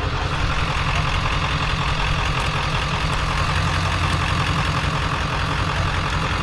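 A vehicle engine running steadily: an even low drone with a constant hiss above it.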